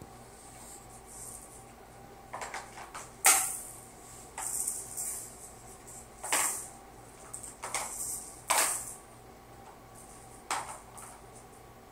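Short, bright jingling rattles that come every two to three seconds, over a faint steady hum.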